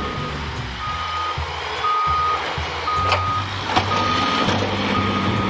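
A dump truck's reversing alarm beeping steadily, about once a second, over the low rumble of the truck's diesel engine. A few sharp knocks sound near the middle.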